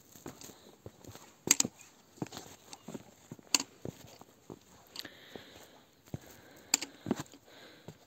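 Footsteps walking down a rocky trail, crunching and scuffing on loose gravel and bare rock at an uneven pace, with a few sharper knocks from steps landing on stone.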